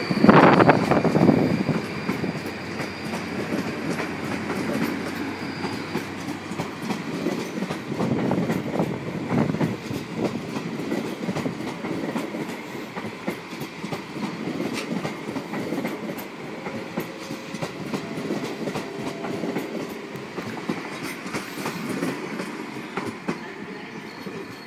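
A train rolling slowly through a station, its wheels clattering over rail joints and points, with a high wheel squeal at first that fades out after a few seconds. The overall sound slowly fades.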